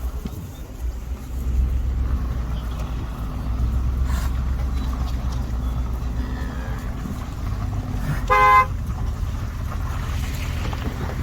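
A vehicle running with a steady low rumble, and one short horn honk about eight seconds in, the loudest sound: a honk to push the cattle along.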